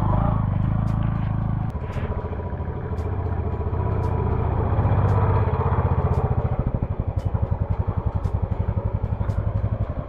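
A motor vehicle's engine running: a steady low drone that settles into an even, rapid pulsing in the second half, with a few light clicks.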